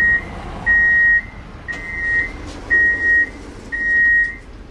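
Door warning signal of an ES2G Lastochka electric train at a station stop: a high electronic beep repeating about once a second, each beep about half a second long.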